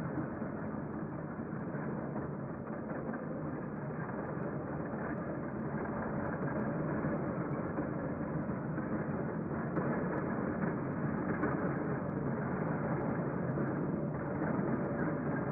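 Train running: a steady rumble that grows a little louder toward the end.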